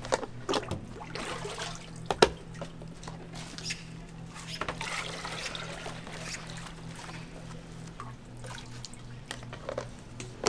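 A stainless steel ladle scooping thick red liquid from a metal pot and pouring it into plastic containers: wet slopping pours, with the ladle clanking against the pot, loudest about two seconds in.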